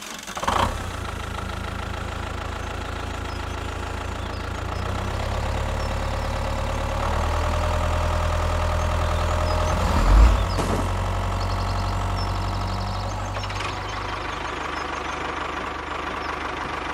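Diesel tractor engine sound running steadily at a low, even chug, with a brief louder surge about ten seconds in.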